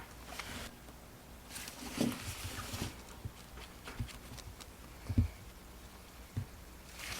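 Faint rustling and a few light knocks from objects being handled, the loudest knock about five seconds in.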